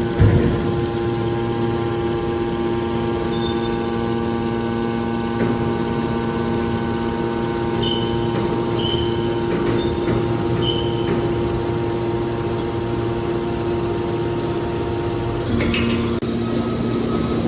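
Steady hum of a hydraulic metal baler's power unit running, with a knock right at the start and a shift in its tone about sixteen seconds in.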